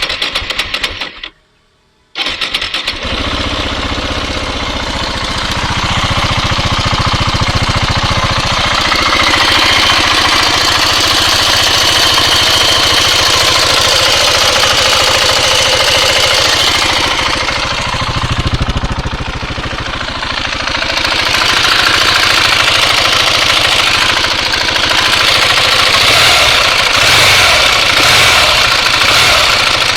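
KTM 690 single-cylinder engine being started: a first attempt of about a second and a half stops, then a second start about two seconds in catches and the engine runs on, its speed shifting a little in the second half. This is the noise the owner reports when the engine is at high temperature.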